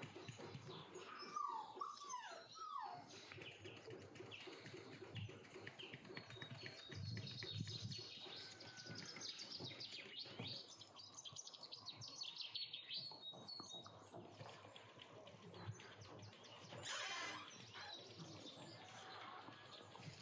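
Flour being sifted through a hand-shaken wooden sieve over a stainless steel bowl: a soft rustle with many small taps. Birds chirp in the background, with a few gliding calls about a second or two in.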